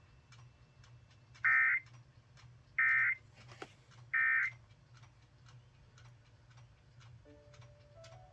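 Emergency Alert System SAME end-of-message code: three short bursts of digital data tones, each about a third of a second and about 1.4 seconds apart, marking the end of the flash flood warning broadcast. A faint steady ticking runs underneath, and musical notes begin near the end.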